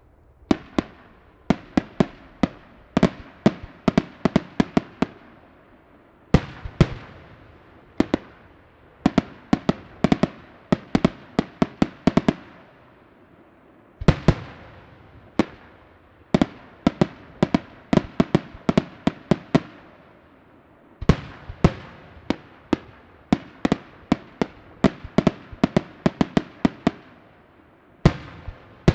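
Aerial fireworks shells bursting in rapid salvos of sharp bangs, a fresh volley starting after each short lull, every bang trailing off in echo.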